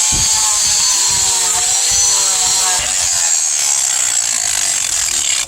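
Power grinder grinding the steel of a forged knife blade: a steady high-pitched grinding hiss whose lower motor tone wavers as the blade is pressed against it. It stops abruptly near the end.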